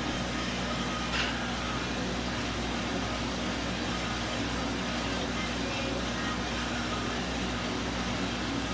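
Steady mechanical hum with an even hiss, like running fans or pumps, and one brief click about a second in.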